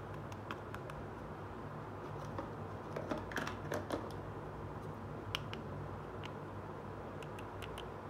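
Light clicks and taps of small plastic miniature toy kitchen pieces being handled, with a cluster of them about three to four seconds in, over a steady low hum.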